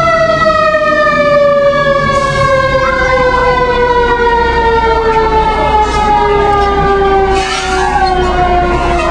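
Fire apparatus siren winding down, one loud tone whose pitch falls slowly and steadily, over a low steady rumble.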